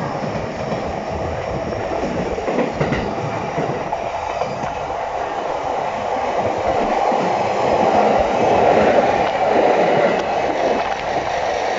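JR East E233 series 1000 electric commuter train running by, a steady wheel-on-rail noise that swells from about seven to ten seconds in.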